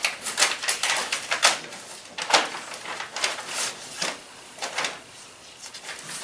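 Paper rustling and crinkling in irregular scratchy rustles as a sealed bid envelope is opened and the bid sheets are pulled out and unfolded.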